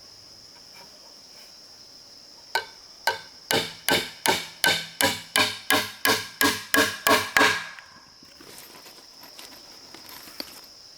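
Hammering on wood: a run of about fifteen sharp blows, roughly three a second, getting louder toward the end and then stopping. Insects drone steadily in the background.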